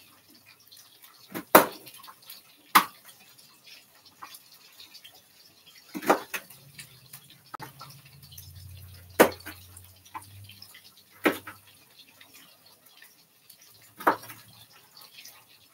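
A kitchen knife cutting raw carrots into strips on a cutting board: about six sharp chops of the blade hitting the board at uneven intervals, with quieter cutting sounds between.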